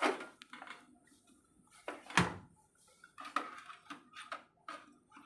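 Scattered clicks and knocks of computer hardware being handled, with one louder thump about two seconds in and a run of small ticks after it.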